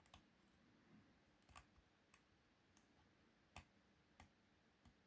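Faint, scattered clicks of a pick and tension wrench working inside a 5-pin euro cylinder lock under counter-rotation tension; the pins are not setting, and the lock feels stuck. About six light ticks, the loudest about three and a half seconds in.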